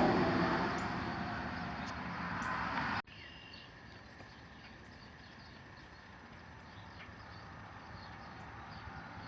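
A passing vehicle's noise fading away over the first three seconds, then an abrupt cut to quiet outdoor background with small birds chirping now and then.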